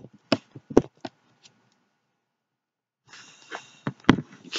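Sharp knocks and bumps right against the microphone, a quick cluster in the first second and one more about four seconds in, as a puppy scrambles and paws at the camera.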